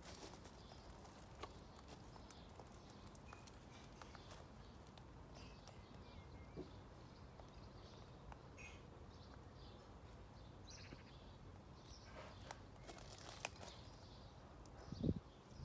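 Faint outdoor garden ambience: a low steady hiss with scattered short, high chirps from distant birds and a few small clicks and rustles. A single low thump near the end is the loudest sound.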